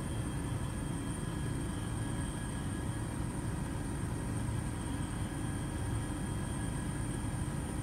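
Steady drone of an aircraft in flight, heard from on board: an even low rumble with faint steady high-pitched whines over it.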